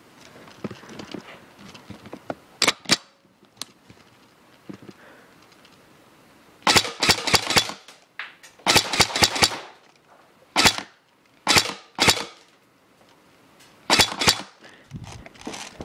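Airsoft electric gun (AEG), an M4-style rifle, firing a mix of single semi-auto shots and short full-auto bursts of rapid sharp cracks. There are two single shots, then two bursts, three more single shots, and a last quick burst near the end.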